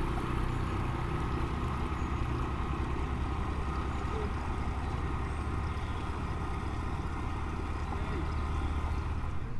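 Boat engines running steadily under way: the narrowboat's engine and the outboard motor of a small survey boat just ahead, an even low hum.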